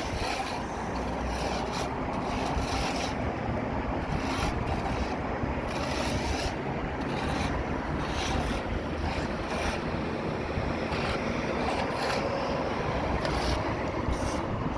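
Construction machinery engine running steadily, with scattered short knocks and scrapes over it.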